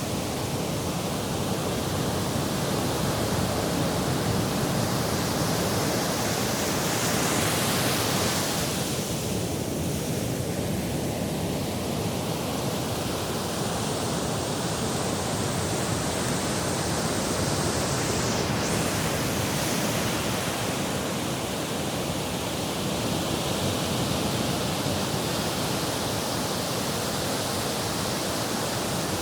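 Sea surf and wind making a steady rushing noise.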